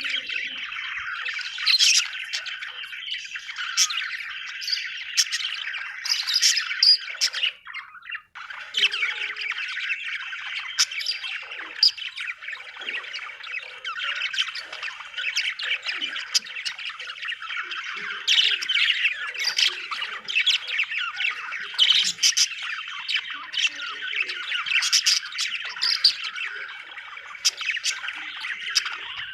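Budgerigars chattering and warbling continuously, with short sharp chirps and squawks over the chatter. There is a brief lull about eight seconds in.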